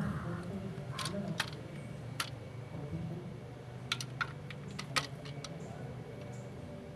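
Scattered light metallic clicks and taps, some in quick pairs, as small metal parts or hand tools are handled during engine work, over a steady low hum.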